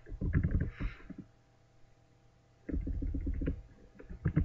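Keystrokes on a computer keyboard in two short runs, with a faint steady electrical hum underneath.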